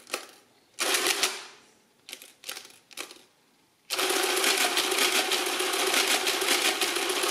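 Madas BZS electric mechanical calculator: keys clicking and clunking as a number is set, then about four seconds in the motor and stepping mechanism start running an automatic division, a steady fast mechanical clatter.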